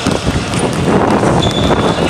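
Basketball court sounds: a ball bouncing and players' footsteps on the hard court, under steady wind noise on the microphone, with a short high squeak near the end.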